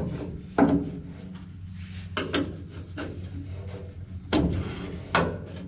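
A handful of sharp knocks and clatters with rubbing and scraping between them, from hand tools being handled while working at a stuck fuel-tank fitting, over a steady low hum.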